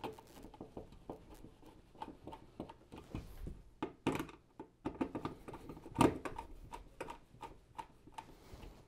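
Hand screwdriver turning the two mounting screws of a wall light switch into its metal device box: a string of small, faint clicks and scrapes, with two sharper knocks about four and six seconds in.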